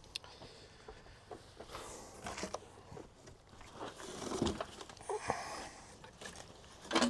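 Light handling noise: scattered rustles, scrapes and small knocks, with a busier stretch around the middle.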